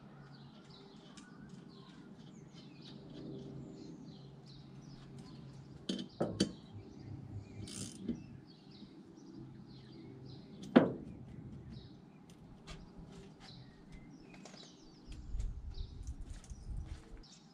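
Birds chirping throughout, with a few sharp clicks and knocks from work on the car; the loudest is a single knock about two-thirds of the way through. A low rumble comes near the end.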